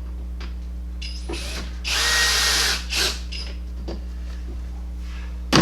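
A power drill runs for under a second, then gives a second short burst, over a steady low hum. A sharp knock follows near the end.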